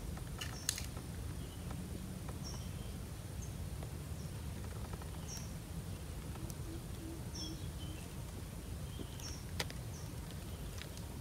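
Faint outdoor ambience: short, high bird chirps repeating every second or so over a low rumble. Two sharp clicks stand out, one about a second in and one near the end.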